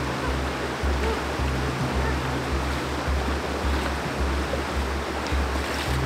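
Steady rush of a waterfall under background music with a low, pulsing bass line.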